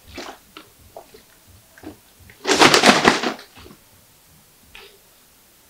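A plastic bottle of liquid being handled, with one loud crackling burst about a second long near the middle and light handling noises around it.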